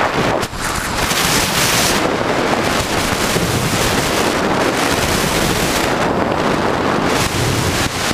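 Loud wind rushing over the microphone of a fast-moving electric bike, a steady, even roar with a brief dip about half a second in.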